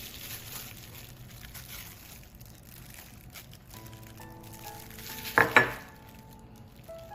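Steady sizzling hiss of food frying, under soft background music, with a loud short clatter about five and a half seconds in.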